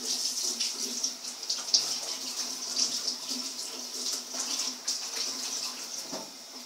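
Water running from a tap with irregular splashing as clay is washed off hands.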